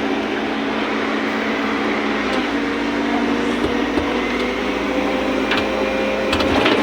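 Excavator engine running steadily, its pitch shifting slightly about two seconds in.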